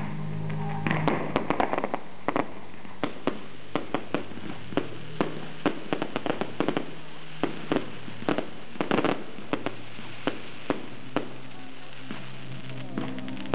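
Aerial fireworks bursting in a rapid, irregular run of bangs and cracks. The bangs are thickest in the first two seconds, then come about two a second and thin out near the end.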